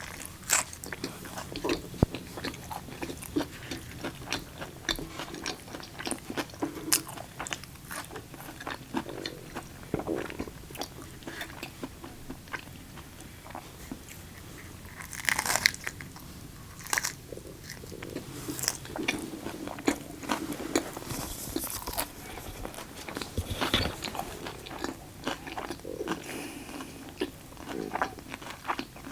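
Close-miked eating: a person biting, chewing and crunching food, a steady run of wet mouth clicks and crackles with a few louder crunches about halfway and near the end.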